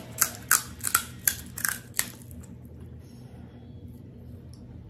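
Crisp, hollow panipuri shell cracking: a quick run of sharp crackles for about the first two seconds, then stopping.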